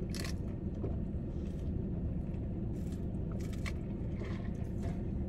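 Steady low rumble inside a car, as of the engine running, with a few faint short noises from eating on top of it.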